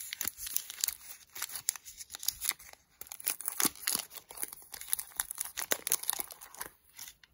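Crinkling and tearing of a Reese's peanut butter cup's plastic wrapper being unwrapped by hand: a dense, irregular crackle that dies away shortly before the end.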